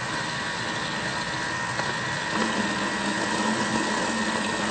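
Thermomix kitchen machine running steadily at speed 3.5, whipping cold cream into chantilly that has not yet firmed up; the motor makes a steady whine.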